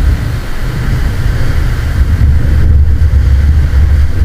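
Wind buffeting the microphone in a loud, steady low rumble, over the wash of heavy surf.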